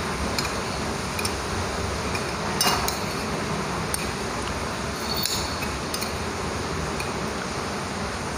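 Metal fork clinking against a plate a few times while instant fried noodles are eaten, the loudest clinks about two and a half seconds in, over a steady background hiss.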